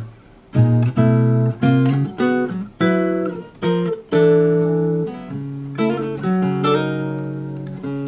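Restored 1977 GM R1-14 nylon-string classical guitar played in improvised chords. After a short pause just at the start, chords come about three a second, then more slowly from about five seconds in, each left to ring.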